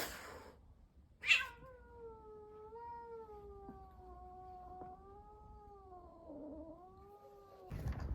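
After a short sharp burst about a second in, a cat gives one long, wavering yowl lasting about six seconds. It is the drawn-out threat cry of a cat squaring up to another cat.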